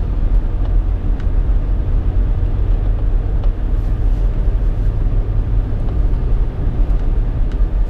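Steady road and engine noise of a car driving at speed, heard from inside the cabin, with a few faint, irregular clicks from a loose piece of ice tapping against the windshield.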